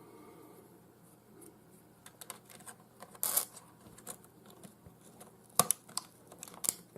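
Laptop parts being handled: scattered sharp plastic clicks and short scraping rustles. The loudest clicks come about three, five and a half and almost seven seconds in.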